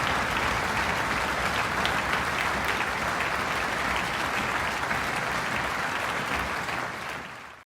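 Audience applause, a dense, steady clapping from a large crowd, fading out near the end.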